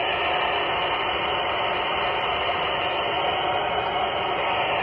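Steady FM receiver hiss from a handheld amateur radio transceiver's speaker with the squelch open, listening on the IO-86 satellite downlink with no station coming through.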